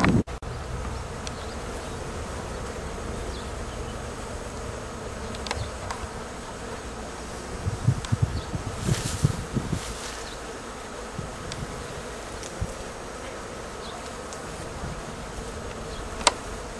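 Bees buzzing in a flowering apple tree, a steady drone, with a few gusts of wind on the microphone and some rustling about halfway through, and a sharp click near the end.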